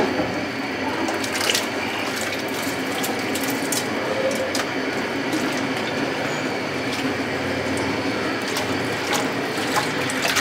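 Soaked rice sliding from an aluminium bowl into a large pot of boiling water, over a steady hiss from the boiling pot, with a metal spoon scraping and clicking against the bowl a few times.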